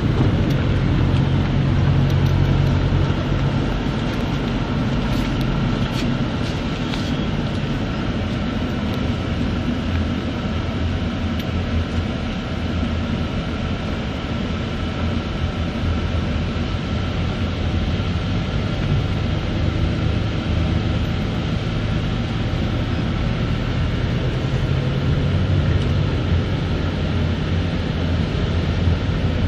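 Engine and road noise heard from inside a moving vehicle's cabin: a steady low engine hum over tyre noise, its pitch shifting a little a few times.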